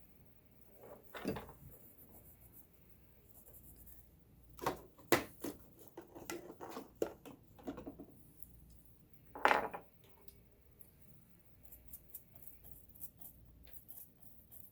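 Light clicks, taps and brushing scrapes of small metal sewing-machine parts, the needle plate and feed-dog area, being handled and cleaned, with the sharpest knocks about five seconds in and again near the ten-second mark.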